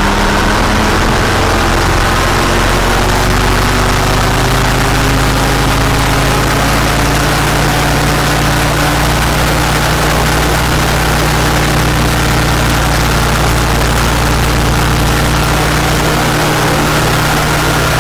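Rotax 503 two-cylinder two-stroke engine of a Challenger 2 ultralight running steadily during a ground run, heard close up with the steady rush of its spinning propeller. The engine note creeps slightly upward in pitch.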